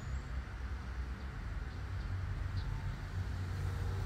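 Shrimp cooking in a thickening sauce in a frying pan, a light sizzle over a steady low rumble.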